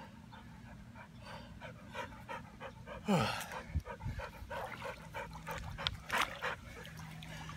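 Black-and-white spaniel-type dog panting, about three to four quick breaths a second, with a short sound falling steeply in pitch about three seconds in.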